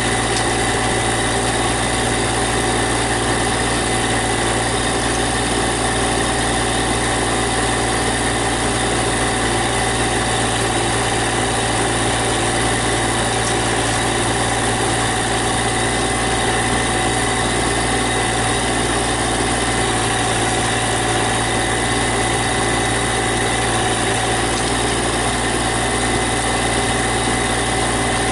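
Compact tractor engine running steadily at idle, with an even hum that does not change.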